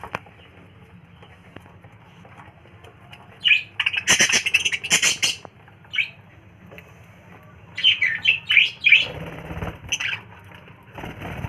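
Pet budgerigars chirping and squawking in short bursts, with wings flapping. The calls come in two main clusters, about three and a half seconds in and again around eight seconds.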